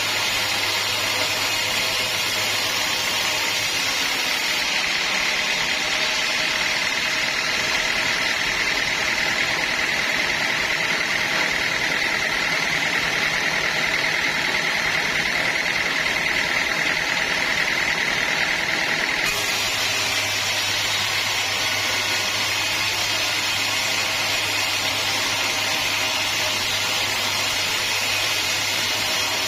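Sawmill saw and machinery running steadily, with a high steady whine through the middle that stops abruptly about nineteen seconds in.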